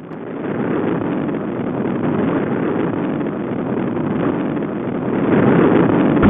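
Small car engine, an old Fiat 500, running steadily as the car drives along, growing louder about five seconds in.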